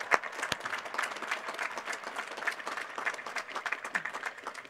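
Crowd applauding: many hands clapping at once, with a few sharper single claps close to the microphone in the first second. The applause thins out near the end.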